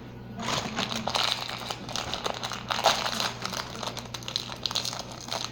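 Thin toy packaging crinkling and crackling as hands handle it and work a small accessory out of it. This is a busy run of small crackles that starts about half a second in.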